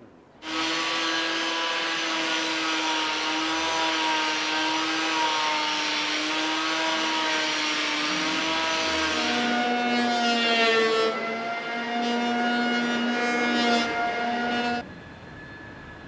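Handheld electric power tool running under load as it shapes a wooden boat frame, a steady motor whine that starts about half a second in. Its pitch drops a little over halfway through, and it cuts off suddenly near the end.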